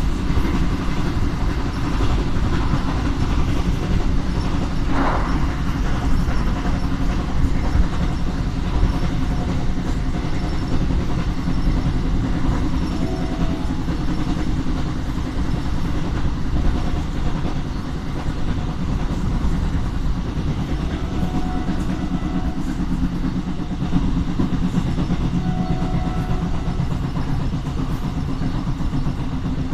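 Train running along the track, a steady rumble with wheels clacking over the rail joints and a brief higher-pitched squeal about five seconds in.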